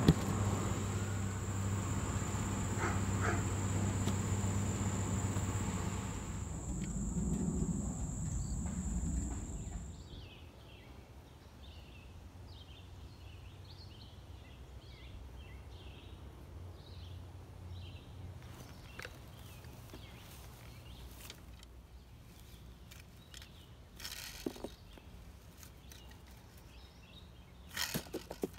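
Outdoor yard sounds: a steady high whine over a low hum for about the first ten seconds, then quieter, with a run of short chirps. Near the end come a few brief scrapes of a rake scooping dog droppings from the grass into a pooper-scooper pan.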